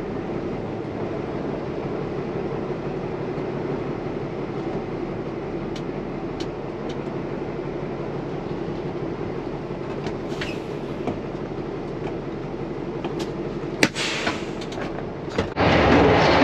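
Grain truck's diesel engine idling steadily, heard from inside the cab, with a few faint clicks. Near the end a sharp click comes, then a sudden jump to a louder, steady mechanical rumble beside the elevator's grain pit.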